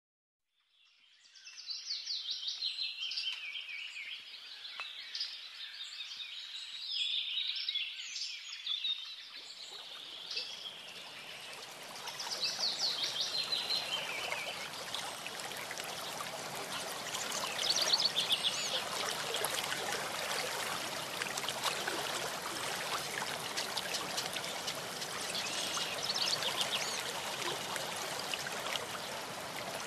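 Songbirds singing repeated high trills. About a third of the way in, the steady rush of a small stream comes in suddenly and continues, with the birds still singing over it.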